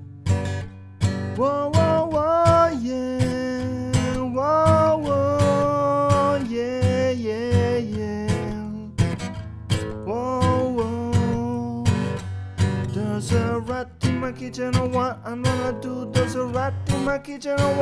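Acoustic guitar strummed in a steady rhythm as a song's intro. A wordless melody line glides over it for several seconds near the start and again about two-thirds of the way through.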